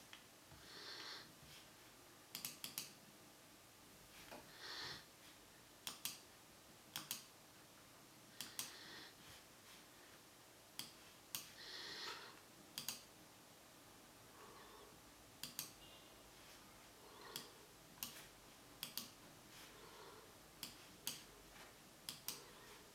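Sharp clicks, many of them in quick pairs or threes, repeating every second or two, between soft hissing swells over a quiet background.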